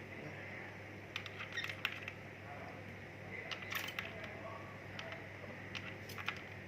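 Scattered light clicks and taps of small objects being handled, over a faint steady low hum.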